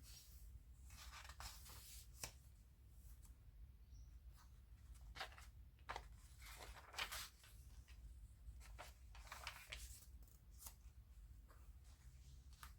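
Soft paper rustling and flicking as the pages of a handmade junk journal are turned and handled, in brief scattered swishes over a faint low hum.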